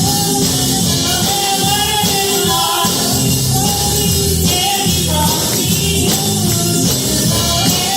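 Church worship music with singing over a full band, playing loudly and steadily.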